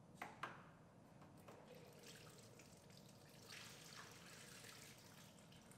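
Two quick clicks, then engine coolant pouring out of the 2009 Ford Focus's radiator through the just-disconnected lower radiator hose and splashing faintly into a drain pan, heaviest in the last couple of seconds.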